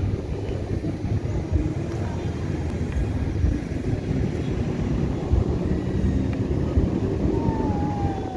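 XK A290 RC foam jet flying, its small electric motor heard faintly over a loud, uneven low rumble. Near the end a whine falls in pitch.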